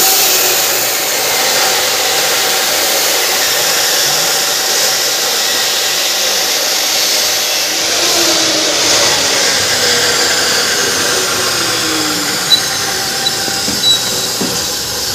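A machine running with a steady whirring hiss, and a few light clicks near the end.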